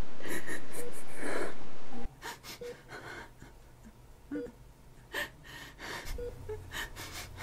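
A woman crying, with sobs, gasps and whimpers. A short soft beep repeats about every two seconds, like a patient monitor. The sound is louder for the first two seconds, then drops and the sobbing goes on quieter.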